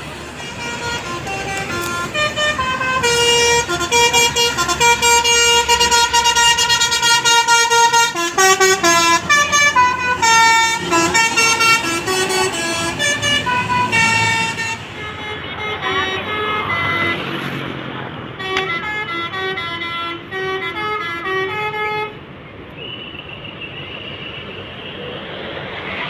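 Bus 'telolet basuri' musical air horn playing a tune in quick stepped notes, several pitches sounding together, then cutting off about 22 seconds in.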